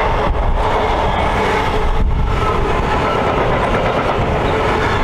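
Freight train wagons passing close on the rails: a loud, steady rumble and rattle of wheels and wagon bodies.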